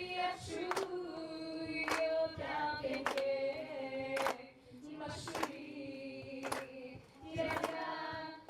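A group of voices singing long held notes, in the manner of a choir, with a sharp beat, like a clap or drum stroke, about once a second.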